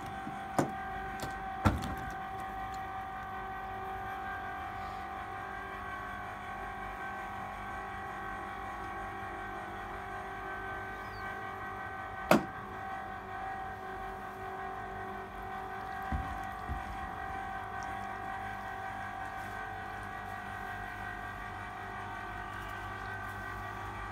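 Electric winch motor running with a steady whine, hauling a small boat up a wooden slipway on its line. A few sharp knocks break in near the start, the loudest about twelve seconds in and two smaller ones a few seconds later.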